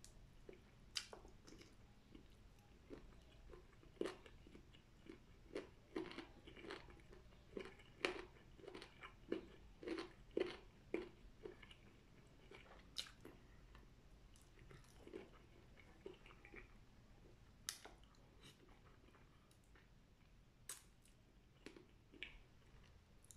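Person chewing and eating food close to the microphone: irregular soft mouth clicks and smacks, busiest in the middle and thinning out near the end.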